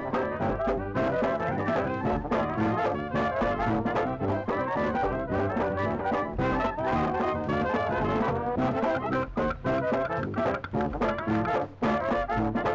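Upbeat brass-led background music with a steady beat, trombone and trumpet to the fore.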